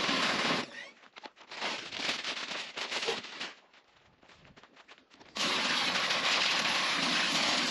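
Electric pressure washer running and jetting water, cutting out as the trigger is let go about half a second in, sputtering briefly, then falling quiet with a few clicks before starting up again loud and steady a little over five seconds in.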